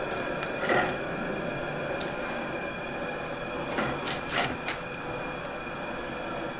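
Steady machine hum with a faint high whine, and a few short scrapes and knocks as a hand presses and adjusts a freshly bent thin wooden strip against a wooden form.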